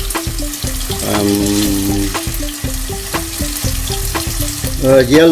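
Yellowfin tuna steaks and apple slices frying in hot oil in a pan: steady sizzling with scattered sharp pops.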